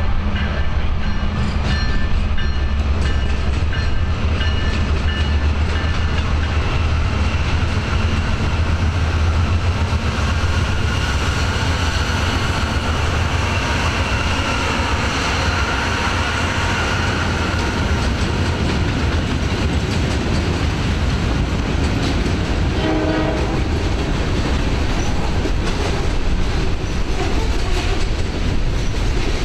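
Norfolk Southern diesel freight train passing close by. The locomotives' engines drone deeply for the first several seconds, then give way to the continuous rumble and rattle of loaded freight cars rolling past on the rails. A brief pitched tone cuts through about two-thirds of the way in.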